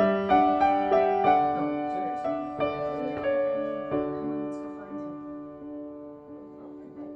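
Slow, gentle piano music: single notes and soft chords, each ringing and dying away, growing quieter over the last few seconds.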